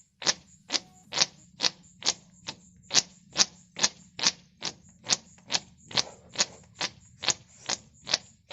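A quick, regular series of sharp pops, about two to three a second, as a thumb is pressed into small hollows in a carved surface and pulled away sharply. Each pop is air rushing back into the sealed hollow.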